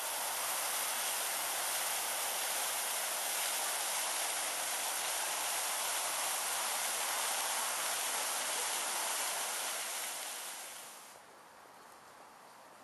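Water rushing and splashing from a row of fountain jets, a steady hiss that fades out about ten seconds in.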